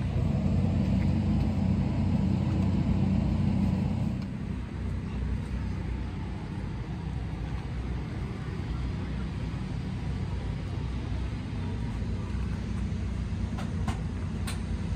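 Low, steady engine rumble, louder for the first four seconds and then settling to a lower, even level.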